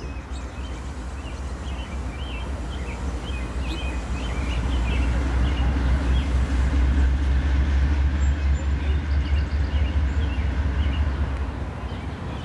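Distant Norfolk Southern diesel locomotive approaching, a low rumble that swells toward the middle and eases near the end. Birds chirp throughout.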